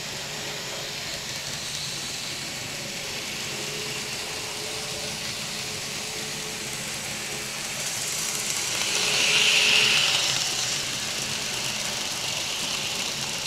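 N scale model train running along the track: a steady high noise that grows louder from about eight seconds in, peaks around ten seconds as the train comes close, then eases off.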